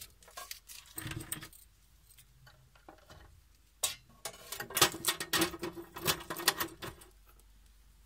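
Light clicks and rattles of a sheet-metal enclosure door and its key lock being handled, coming thickest in the second half.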